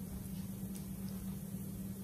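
Steady low hum over a faint even hiss: kitchen room tone.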